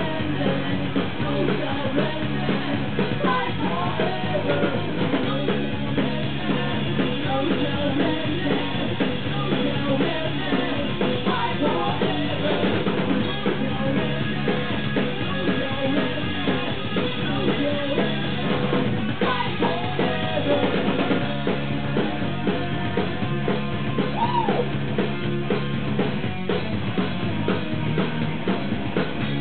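Punk rock band playing live: loud electric guitars and a drum kit driving a fast song, with sung vocals over them.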